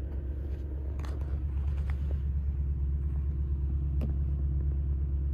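Steady low rumble in a pickup truck's cab, with a few faint clicks about one, two and four seconds in.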